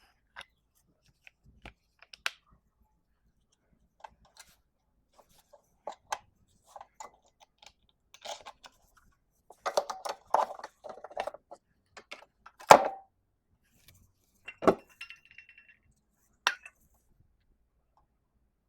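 Small metal parts and tools clinking and clicking as they are handled during mower repair, with a burst of rattling about ten seconds in and a sharp knock a little later, the loudest sound.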